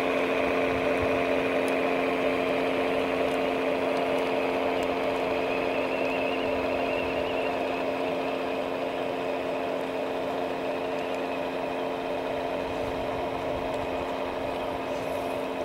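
Small electric motors and gearing of a radio-controlled construction model running steadily: a constant mechanical whine with several fixed tones, easing slightly in level toward the end.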